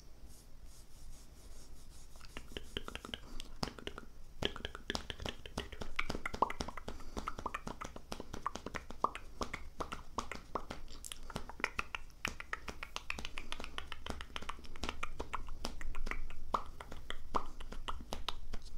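ASMR mouth sounds: a dense run of quick wet clicks and smacks of the lips and tongue, faint at first and thickening from about two seconds in.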